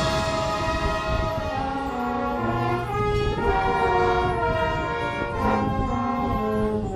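Marching band's brass section playing a slow melody in held chords, the notes changing about every second, with low brass notes underneath.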